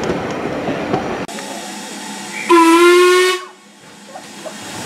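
Steam train running on the rails, heard from inside a carriage, then a cut. Then the steam whistle of Ivatt Class 2MT locomotive 46447 gives one short, steady blast about two and a half seconds in.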